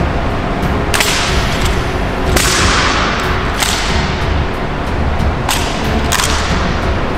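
Five sharp cracks of an honor guard's rifle drill, hands slapping and clacking rifles in unison, each echoing off the marble hall for about a second.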